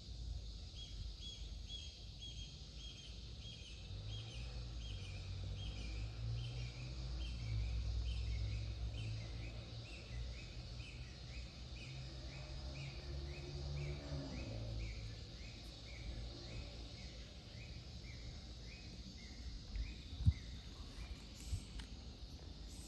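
Low, steady outdoor rumble with a series of short, high chirps repeating about twice a second and slowly falling in pitch, stopping about 19 seconds in. A sharp click sounds near the end.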